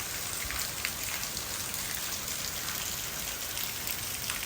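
Steady heavy rain pattering on surfaces, a dense even hiss with many small drop ticks.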